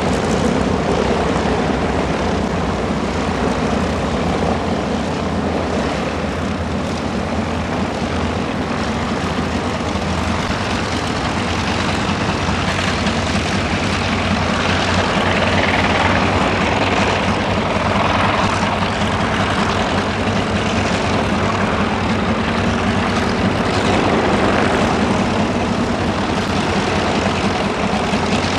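Grumman TBM-3E Avenger's Wright R-2600 fourteen-cylinder twin-row radial engine running at low power on the ground, propeller turning, a steady drone that swells slightly a few times.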